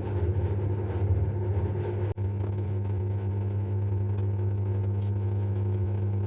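Steady mechanical hum of a machine running, with a brief drop about two seconds in.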